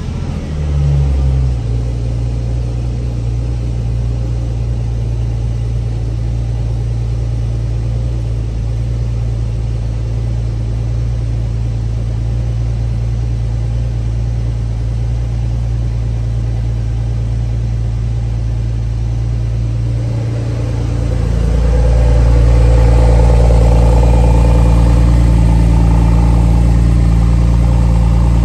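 2010 Porsche 997.2 Turbo's 3.8-litre twin-turbo flat-six idling just after a cold start: it flares briefly as it catches, then settles to a steady fast idle of about 1,100–1,200 rpm. It is heard from inside the cabin at first, then louder and fuller at the tailpipes from about twenty seconds in.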